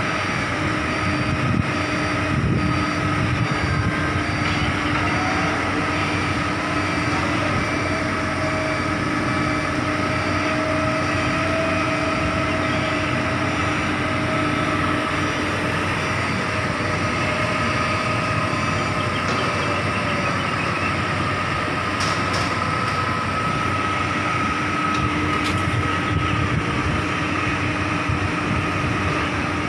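Heavy diesel construction machinery running steadily, a continuous rumble with a steady droning whine and no hammer blows.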